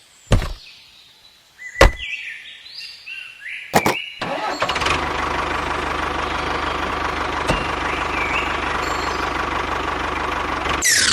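After a few sharp clicks and a short stepped electronic tone, an engine starts about four seconds in and runs steadily. A falling whoosh comes right at the end.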